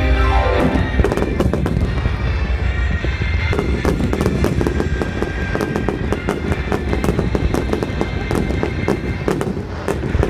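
Aerial fireworks going off in a dense, rapid run of sharp bangs and crackles, with music playing underneath.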